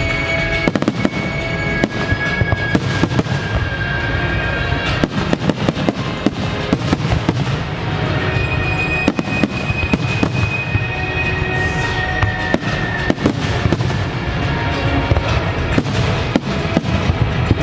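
Fireworks display in a dense finale barrage: rapid, overlapping bangs and crackling, with music playing underneath.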